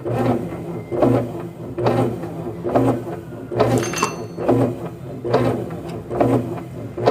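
Brastemp top-loading washing machine running its wash (agitation) cycle dry, the motor and transmission swinging the agitator back and forth in a regular rhythm, about one surge a second, over a steady hum. There is a brief high squeak about four seconds in.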